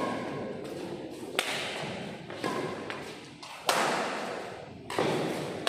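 Badminton rackets striking a shuttlecock back and forth in a doubles rally: five sharp hits a little over a second apart, each ringing on in a large hall.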